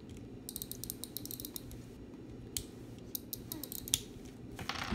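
Wind-up spring motor of a Zoids Wild ZW-04 Scorpear model kit being wound with its plastic key. Short runs of quick ratcheting clicks with brief pauses between turns.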